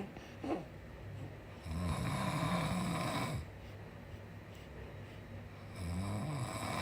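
A man snoring in his sleep: two long, low snores, one starting about two seconds in and another near the end, with quieter breathing between them.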